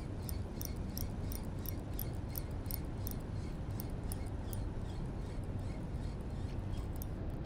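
Faint, light clicking, a few uneven ticks a second, over a low steady rumble.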